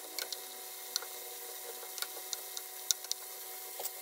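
Butter, garlic and white wine sauce bubbling gently in a frying pan around seared scallops: a faint steady sizzle with scattered sharp pops and crackles, over a low steady hum.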